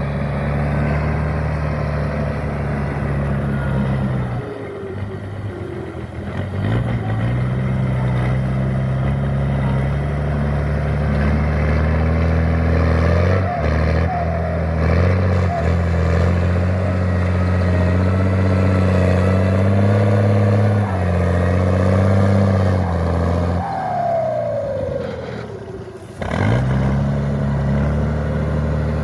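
CBT 4x4 tractor's diesel engine running hard. The revs drop twice, about four seconds in and again near the end, and climb back up each time.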